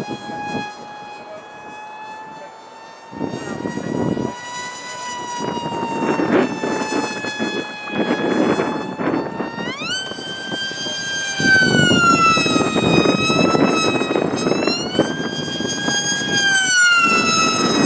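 Mini Rite Wing RC flying wing's motor and propeller whining in flight. The pitch steps up sharply about ten seconds in as the throttle opens, then rises and falls. Gusts of wind buffet the microphone throughout.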